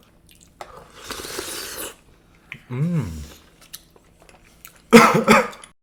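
Close-miked eating sounds: chewing and wet mouth noises with small clicks, and a noisy stretch of about a second starting about a second in. A hummed 'Mmm' follows, then a sudden loud burst near the end.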